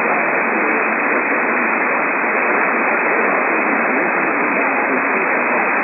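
Steady radio static: an even, loud hiss with no signal, heard through a receiver's narrow audio band.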